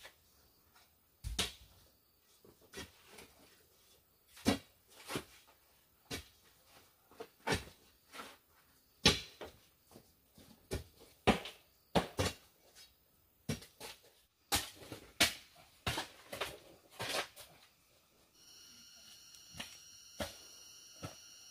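Irregular knocks and clacks of bamboo being worked, one or two a second with pauses. Near the end they give way to a steady, high buzz of forest insects.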